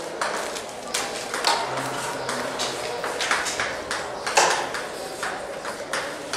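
Chalk writing on a blackboard: a run of quick, irregular taps and short scratches as the chalk strokes out letters.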